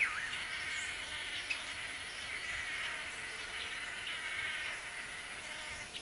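Dense, buzzy, insect-like calling of male blue manakins at their cooperative dance display. The chorus swells and fades in waves, with a short downward-sliding call right at the start and a brief click about a second and a half in.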